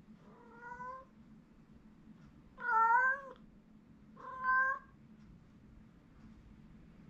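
Domestic cat meowing three times, drawn-out wailing calls with the middle one loudest. The cat is calling out while left alone by its owner.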